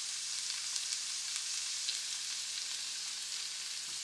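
Chopped green vegetables sautéing in a nonstick frying pan: a steady high sizzle with faint crackles.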